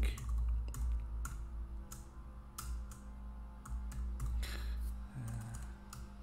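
Computer keyboard typing: scattered, irregular keystrokes over a faint steady low hum.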